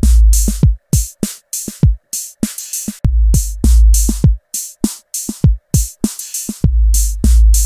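Background electronic music with a drum-machine beat and deep bass notes that swell about every three and a half seconds.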